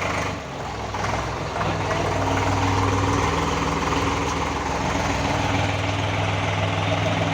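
Eicher 485 tractor's diesel engine idling steadily, getting a little louder about one and a half seconds in.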